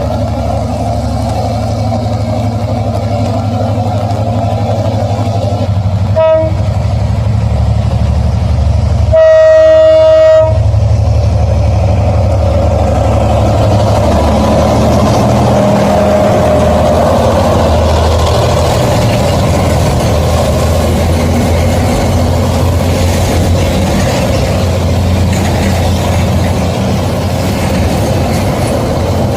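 Diesel freight train passing with a steady rumble. It gives a short horn blast about six seconds in and a longer, louder blast about three seconds later, then the wagons keep rolling by.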